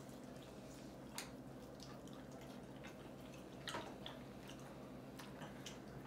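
Faint eating sounds over quiet room tone: wet chewing and lip smacks from people eating chicken wings, with a few soft clicks, one about a second in and a couple more near the middle.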